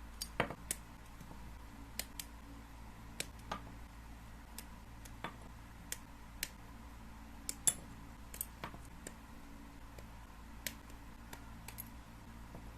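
Irregular sharp plastic clicks and snips, about twenty of them, from assembling a Gundam plastic model kit: parts being clipped from the runners and pressed together. A low steady hum lies underneath.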